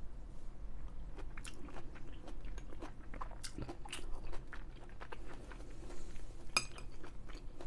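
A person chewing food close to the microphone: irregular soft mouth clicks and smacks, with one sharper click near the end.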